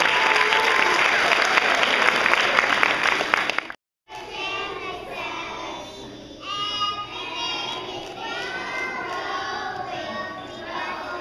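Audience applauding for nearly four seconds, then a short break in the sound. After that, a group of young children sings a song together.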